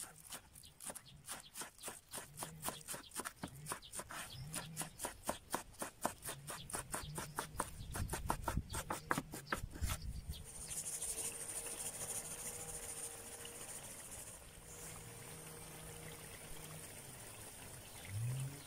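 Kitchen knife chopping green onions and dill on a wooden cutting board: quick, even chops, about four to five a second, for roughly the first ten seconds. After that the chopping stops and a steady high hiss takes over.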